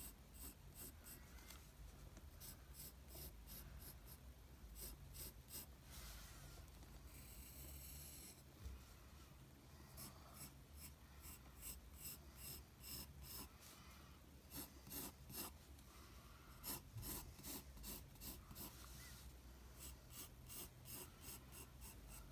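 Pencil scratching on paper in faint, short repeated strokes as a drawing is sketched, with a longer continuous stroke about seven seconds in.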